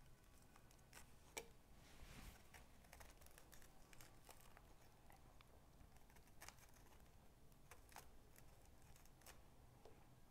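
Faint, scattered clicks and scrapes of a small knife cutting into the tough rind of a pomegranate, over quiet room tone.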